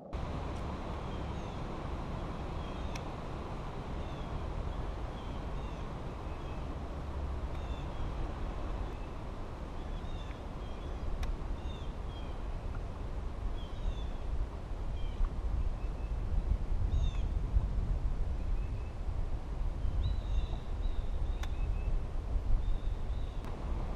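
Small birds chirping and calling again and again over a steady low rumble, with an occasional faint sharp tick.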